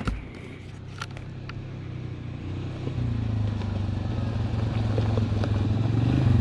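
A vehicle engine running, stepping up in pitch and level about three seconds in and climbing steadily after that, with a sharp knock at the start and another about a second in.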